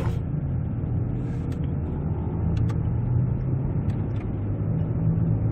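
Steady low engine and road rumble inside the cabin of a moving 2010 Hyundai Equus 3.8 V6 sedan, with a few faint clicks.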